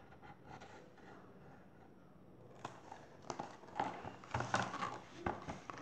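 Pages of a picture book being handled and turned: paper rustling with several sharp taps and knocks, starting about halfway through after a quiet start.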